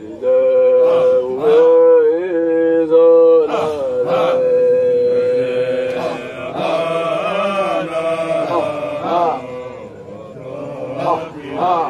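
Sufi dhikr chanting: a voice holds long, drawn-out notes with a wavering, ornamented passage about two seconds in, followed by further sustained chanted phrases.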